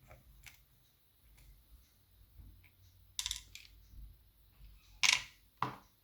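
A few sharp metallic clicks and knocks from a lever mortice lock and its tools being handled, the loudest pair about five seconds in.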